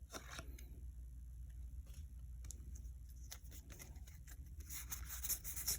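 Faint, scattered clicks and slides of Pokémon trading cards being handled and flipped one by one, over a low steady hum.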